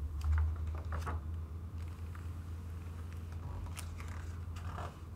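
Pages of a hardcover picture book being turned by hand: a few short paper rustles and taps about a second in and again near the end, over a steady low hum.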